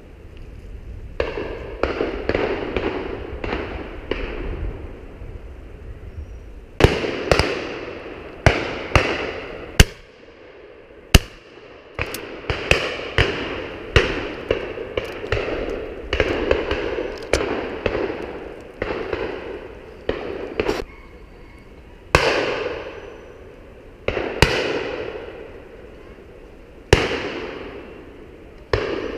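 Shotguns firing in a rapid, irregular run of about two dozen shots, some close and sharp, others more distant, each followed by a trailing echo.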